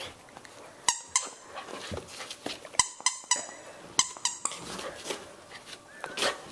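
Rubber squeaky toy squeezed in short, high squeaks, in three quick clusters of two or three squeaks about one, three and four seconds in, and once more near the end.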